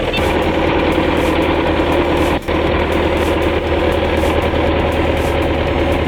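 A vehicle engine running steadily, with a brief drop in sound about two and a half seconds in.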